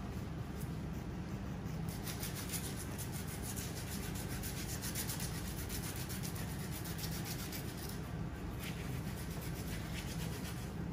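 Foot file rasping back and forth over the sole of a foot in quick, rhythmic strokes, working down hard skin, with a brief pause about eight seconds in.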